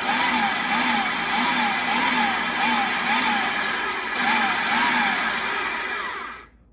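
Food processor motor running with flour, butter and cold water in the bowl as pie dough is mixed, its pitch wavering up and down about twice a second. It dips briefly just after four seconds and cuts off about six and a half seconds in.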